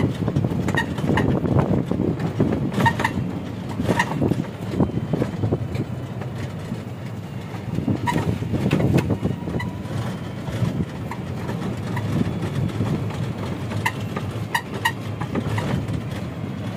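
Open electric tourist cart driving along a paved lane: a steady low rumble of tyres and road, with frequent small knocks, rattles and squeaks from the cart's frame and canopy over the bumps.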